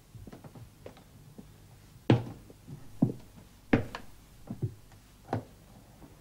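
A string of separate knocks and clunks of things being handled and set down on a kitchen counter, the loudest about two, three and a half and five seconds in.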